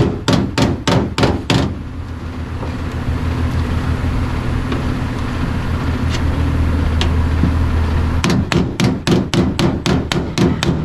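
A hammer striking sheet metal in quick runs of blows, about four or five a second: one run in the first second and a half and another starting near the end. A steady low hum lies between the runs.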